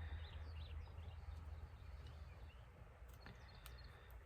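Faint, short bird chirps in the first second over a steady low hum, with a couple of light clicks a little past three seconds.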